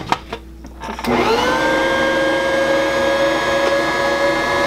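A few knocks and clicks at the mixer, then about a second in a Bosch Universal Plus stand mixer's motor starts up. Its whine rises quickly to a steady pitch as the dough hook kneads the bread dough.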